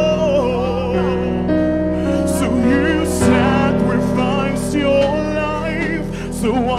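A live gospel worship band: a keyboard holds sustained chords under drums with several cymbal strikes, while vocalists sing wavering, ornamented runs over it.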